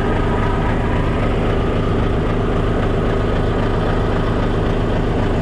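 Heavy truck's diesel engine idling steadily, heard from just behind the cab, a bit loud.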